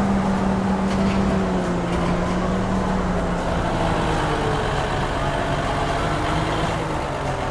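Engine of a giant mining haul truck running steadily with a low hum, dropping slightly in pitch about three seconds in.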